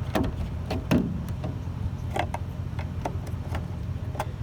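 Irregular plastic clicks and knocks as a new 3157 bulb is pushed into its socket and the socket is worked into the turn-signal light housing, the loudest knock about a second in, over a steady low rumble.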